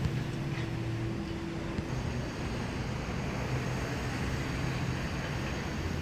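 A steady low engine hum under a constant background din.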